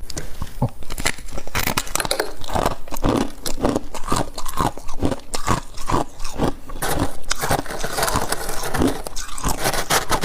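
Close-up crunching of frost ice being bitten and chewed, a quick irregular run of crisp crunches, several a second.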